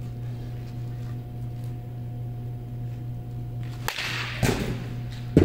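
A steady low hum, then about four seconds in a baseball bat swung into a pitched ball, a short whoosh and crack of contact, followed just over a second later by a louder single thump.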